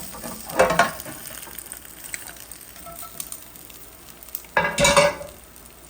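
Freshly baked chicken wings being moved from the hot oven pan into a pot with a utensil: sizzling throughout, with two louder scraping clatters, one about half a second in and another near the end.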